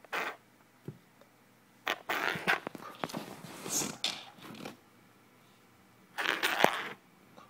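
Close rustling and brushing against the microphone as a long-haired cat on its back is handled at close range, in several short bursts with a few sharp clicks and quiet gaps between.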